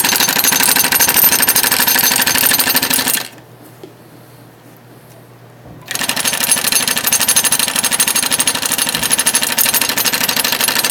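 Industrial twin-needle cart sewing machine stitching geosynthetic fabric, a loud, fast, even stitching clatter. It stops after about three seconds, pauses for a couple of seconds, then starts again and runs on.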